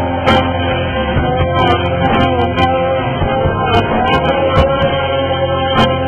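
Rock music with guitar, sounding muffled.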